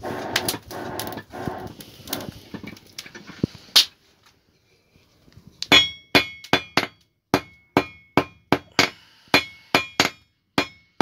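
For about four seconds the forge's air blower runs with a steady whir and a regular rattle, then stops. After a short pause a hammer starts striking hot iron on the anvil, about two to three blows a second, each blow ringing.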